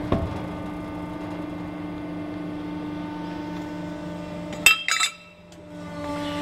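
Hydraulic press brake at work: the steady hum of its hydraulic pump as the punch comes down and bends a strip of sheet. About four and a half seconds in come two sharp metallic clacks as the bend completes, then a brief lull, then the pump hum returns at a slightly lower pitch.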